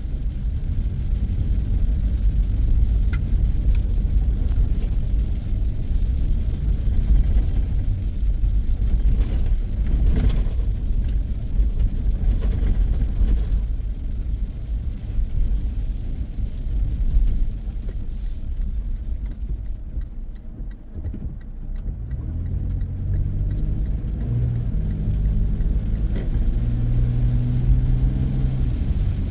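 In-car road noise while driving in the rain: a steady low engine rumble with tyre hiss on the wet road. About two-thirds of the way through the hiss falls away as the car slows, and then the engine's low hum carries on steadily.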